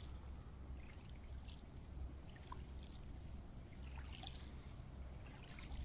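Faint riverside ambience: a low, uneven rumble of wind on the microphone with light water sounds and a few small ticks.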